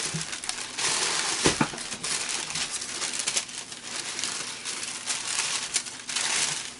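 Packaging crinkling and rustling as it is handled, in irregular bursts with small clicks, and a single thump about one and a half seconds in.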